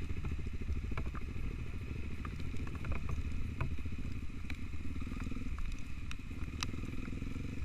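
Trail motorcycle engine running steadily, a dense low pulsing, with occasional sharp clicks and clatter over it.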